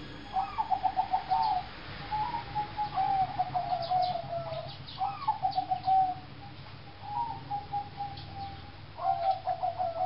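Caged zebra doves cooing: about five phrases in a row, each a short rising note that runs into a quick rolling trill. Faint high chirps from smaller birds come in between them about halfway through.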